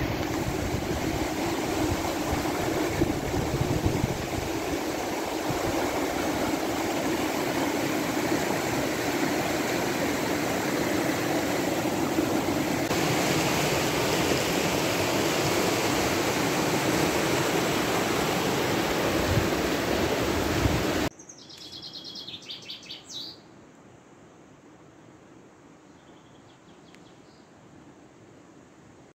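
Rushing water of a fast, muddy stream running over a gravel bed, a loud steady noise that cuts off suddenly about two-thirds of the way through. Then quieter outdoor ambience with a short run of bird chirps.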